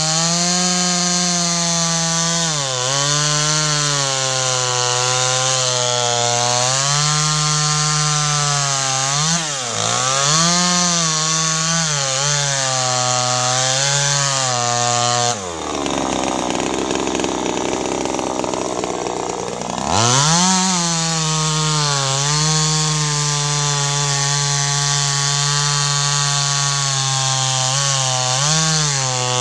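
A 25cc top-handle two-stroke chainsaw with a 16-inch bar cuts through mango wood at full throttle, its engine note held low and steady by the load. The revs sag and recover briefly a couple of times. About halfway through they climb high for roughly four seconds as the chain runs free, then pull back down when the chain bites into the wood again.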